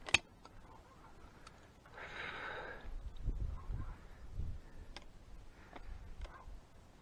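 Outdoor camera-microphone noise: a sharp click just after the start, a brief rustle about two seconds in, then a low rumbling on the microphone for a second or two.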